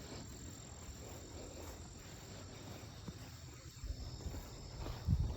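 Insects buzzing over a steady low rumble, with a thump about four seconds in and a louder one near the end.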